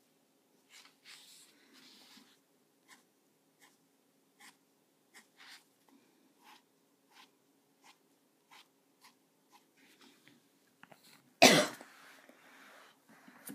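Faint short ticks of a Micron fine-liner pen moving on paper, about one a second, then a single loud, short burst about eleven seconds in.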